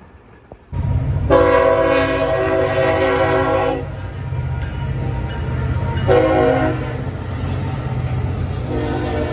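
Freight train locomotive horn sounding: a long blast, a short one about two seconds later, then another long blast starting near the end, over the steady rumble of the passing freight train.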